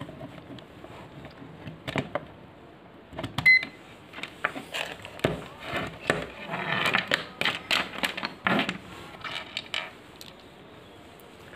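Plastic clicks, taps and scraping from handling a ZOYI ZT-QB9 clamp meter and pulling its test lead out of the input jack. The clicks are scattered, then come thick and fast for a few seconds in the middle, with one short high beep about three and a half seconds in.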